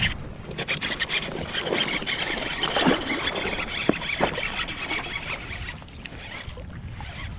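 Water sloshing and splashing close to the microphone, with many small crackles and clicks, starting abruptly and easing off near the end.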